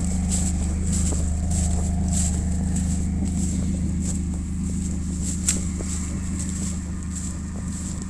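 Off-road vehicle engine running steadily at low revs, with footsteps crunching through dry fallen leaves about twice a second and one sharp click about five and a half seconds in.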